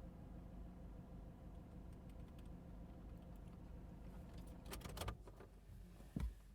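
Low steady rumble of a vehicle, with a quick cluster of clicks about five seconds in and a single thump near the end.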